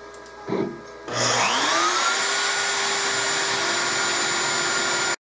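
CNC router spindle spinning up: a rising whine that settles within about a second into a loud, steady run, over a faint machine hum. It cuts off abruptly near the end.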